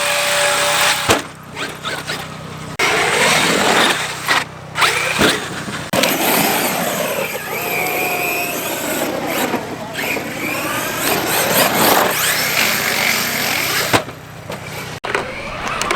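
Brushless electric motors of large RC basher trucks whining, the pitch rising and falling as they rev up and back off under throttle, with a few sharp knocks.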